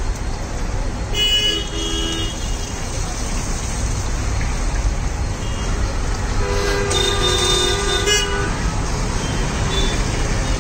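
Vehicle horns honking over steady street traffic noise: a honk of about a second, a second into the sound, and a longer one of nearly two seconds past the middle.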